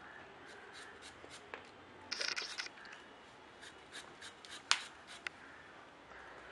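A knife slicing a peeled raw nendran plantain into thin chip rounds by hand: a light, crisp tick with each quick stroke, a few a second, as the slices drop onto a plate. There is a brief scraping rustle about two seconds in and a sharper click near the end.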